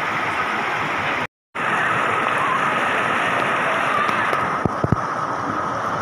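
Shallow water rushing and rippling over flat rock rapids, a steady rush that cuts out completely for a moment about a second in. A few short knocks sound about three quarters of the way through.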